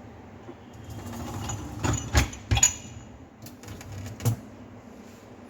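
Plastic dishwasher parts being handled and fitted back into place: rustling with a few sharp clicks and knocks, two close together about two seconds in and another a little after four seconds.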